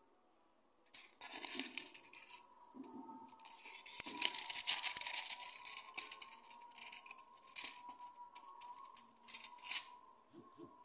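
Aluminium foil crinkling and tearing as it is handled and peeled back, in irregular bursts starting about a second in and stopping near the end.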